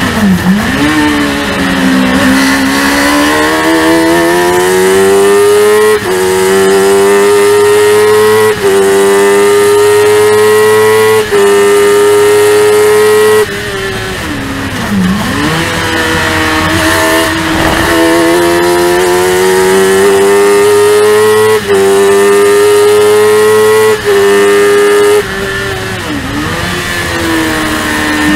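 On-board sound of a Spire GT3 Sports 1000 race car's high-revving, motorcycle-derived engine near full throttle at around 12,000 rpm, with several brief dips in power. Twice it drops sharply in pitch as the driver lifts and changes down for a corner, then climbs back up as the car accelerates again.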